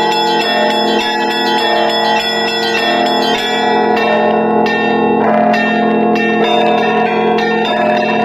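Russian Orthodox church bells rung in the traditional style: quick, repeated strikes of the small bells ring over the lasting tones of the larger bells, with a deeper bell struck about five seconds in.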